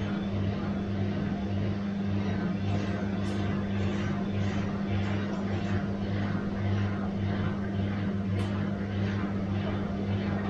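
Bosch washing machine running, with a steady motor hum under a rhythmic swishing that repeats about two or three times a second.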